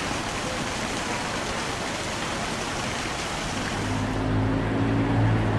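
Steady rushing outdoor noise on the camera's microphone. About four seconds in, low held notes of background music come in and the hiss thins.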